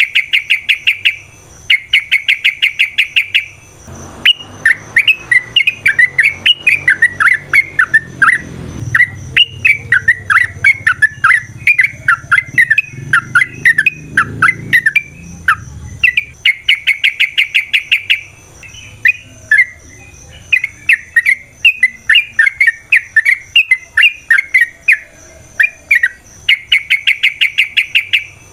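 Yellow-vented bulbul (trucukan) singing: long bursts of very rapid, evenly repeated notes alternate with quick, choppy whistled phrases. A faint low rumble runs under the middle part.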